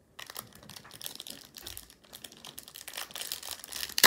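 Plastic crinkling and rustling as trading cards and their plastic card sleeves are handled, with a sharper, louder crackle near the end.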